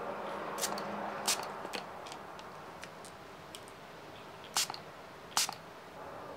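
Two short spritzes from a pump-spray bottle of lens cleaner aimed at a pair of glasses, about a second apart near the end, after a few light clicks of the frames and bottle being handled.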